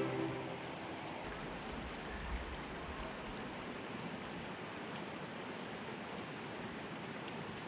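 Steady rush of running water, an even hiss, with a brief low rumble underneath between about one and three seconds in.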